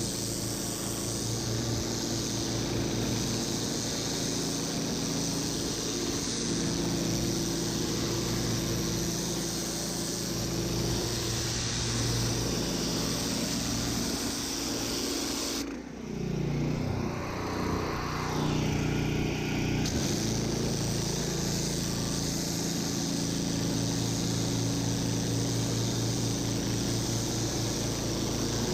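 Pressure washer running, its motor's steady note under the hiss of high-pressure water spraying on block paving. About sixteen seconds in the spray stops and the motor's pitch drops away, then it rises again and the spray resumes about four seconds later.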